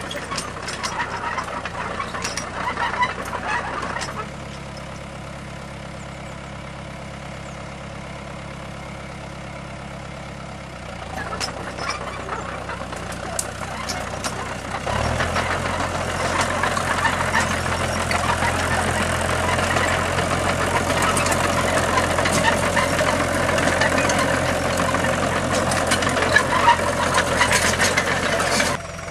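Tractor engines running, heard across several clips that change abruptly a few times. A steady, quieter hum from about 4 to 11 seconds gives way to a louder, noisier run from about 15 seconds until near the end.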